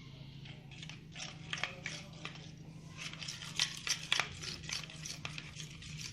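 A spoon stirring and scraping in a bowl of glue, mixing colouring in for slime: irregular clicks and scrapes, a few louder ones partway through.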